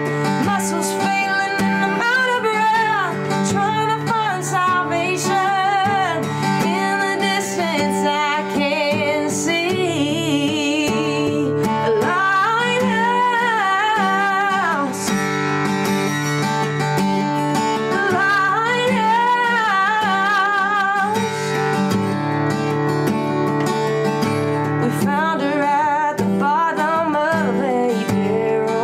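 A woman singing in phrases, with vibrato, to her own acoustic guitar accompaniment.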